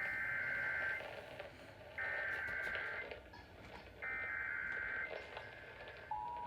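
Emergency Alert System SAME header: three one-second bursts of shrill warbling data tones, a second apart. About six seconds in, the steady EAS attention tone starts.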